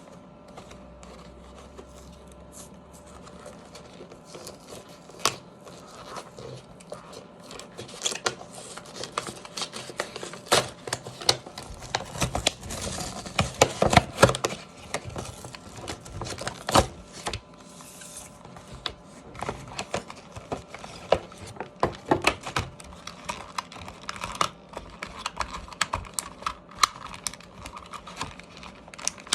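Action-figure packaging being opened by hand: plastic and cardboard handled with many scattered clicks and taps, and a busier stretch of crinkling and tearing partway through.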